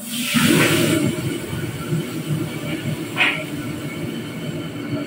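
Ingredients hitting a hot, oiled wok with a loud sizzle that fades over about a second, then stir-frying over a steady low rush from the wok burner. Short sizzling flares come about three seconds in and again near the end.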